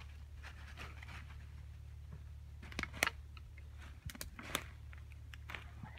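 Dry leaf litter and twigs crunching and rustling underfoot in uneven steps, with a few sharper snaps, over a steady low rumble.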